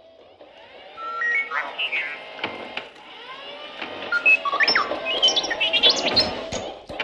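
R2-D2 droid sound effect from Star Wars: rapid electronic beeps, chirps and warbling whistles that slide up and down in pitch. It starts about a second in and grows busier toward the end.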